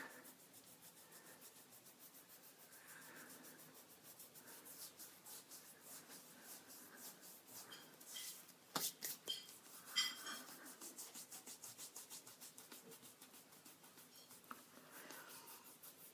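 Fingertips rubbing dried exfoliating gel off facial skin, making faint, quick, even rubbing strokes, with a few louder scratchy strokes near the middle.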